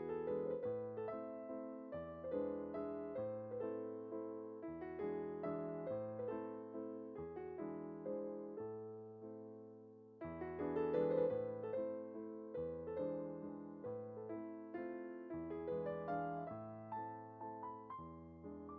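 Background piano music: a gentle melody of repeated notes over low bass notes, with a new, louder phrase starting about ten seconds in.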